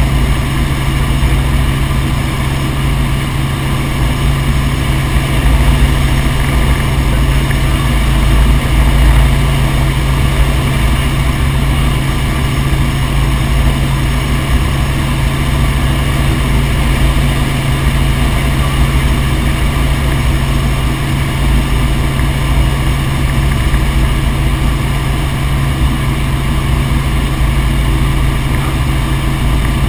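Helicopter in flight: a loud, steady engine and rotor drone that holds level throughout.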